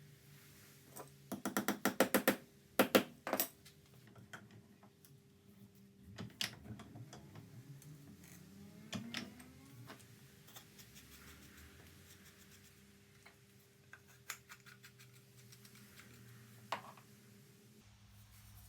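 Quick runs of light taps and knocks with small workshop handling noises, over a faint steady hum.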